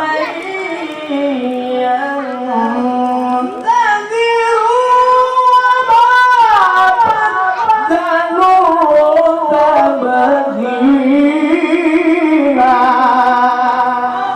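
A male qari reciting the Qur'an in a high voice, drawing out a long ornamented melodic phrase whose pitch climbs and falls, with a wavering note near the end.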